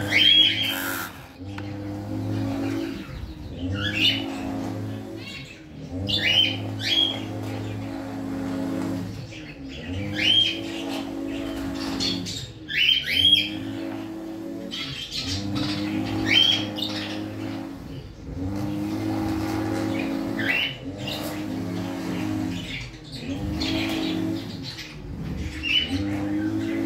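Short, sharp chirps from Bourke's parrots in a nest box, coming singly or in quick pairs every few seconds. Underneath is a steady low hum that swells and dips about every two seconds.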